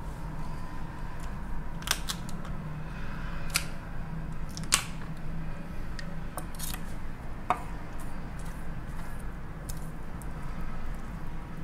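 Cooked lobster claw shell cracking and snapping as the meat is pulled out by hand, a few scattered sharp clicks over a steady low hum.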